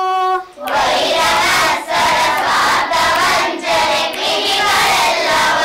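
A class of schoolchildren singing a line of a Kannada song together in chorus, coming in about half a second in, just after a woman's held sung note ends. It is a call-and-response lesson: the children sing the line back after the teacher.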